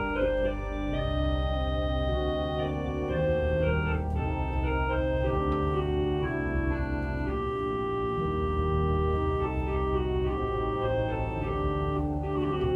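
Church organ playing slow, sustained chords over a held deep bass, the harmony shifting every second or two.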